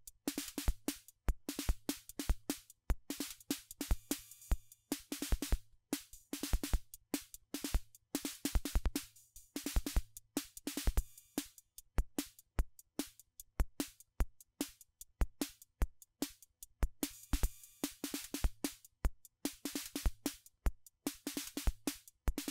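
Analog drum machine beat: a fast pattern of short clicks and thumps, with bursts of bright, hissing cymbal noise in several stretches from a BOSS DR-110-style analog cymbal circuit. A faint low hum runs underneath.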